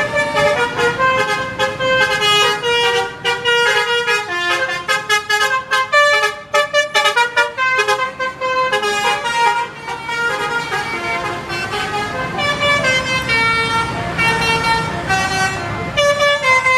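Indonesian bus "telolet" multi-tone air horn playing a melody of short tooting notes in quick runs, moving to longer held notes in the second half.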